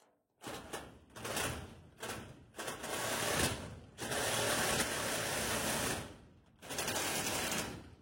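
A power saw cutting in about six bursts, starting and stopping, the longest about two seconds near the middle.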